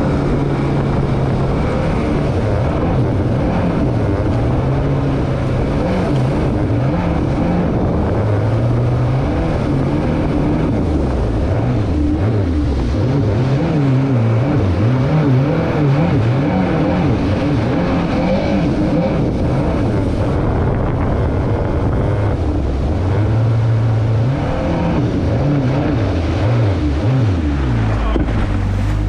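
Stand-up jet ski engine running under way, its pitch rising and falling over and over as the throttle is worked, over a steady hiss.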